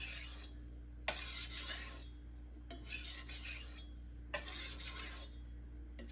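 BD1N steel knife edge drawn in light back-and-forth passes across a soaked Juuma Cobalt Blue 800-grit waterstone: about four wet scraping strokes, roughly one every second and a half. These are burr-removal passes, cutting off the burr just raised.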